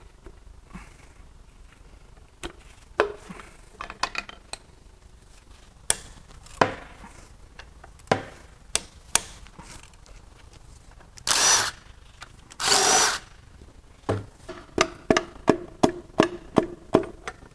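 Hand tools working the connecting-rod cap bolts of a GM 5.3L LH6 aluminium V8 block: scattered metallic clicks and clanks, two short, noisy bursts of tool noise about two-thirds of the way in, then a quick run of ratchet clicks near the end.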